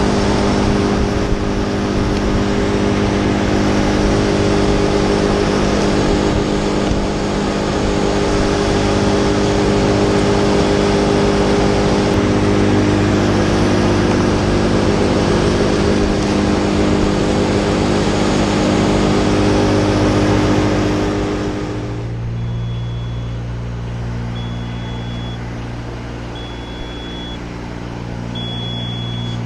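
A small engine idling steadily, which cuts off about 21 seconds in. After that a lower motor hum remains, with the spider lift's short warning beep sounding about every two seconds as the boom moves.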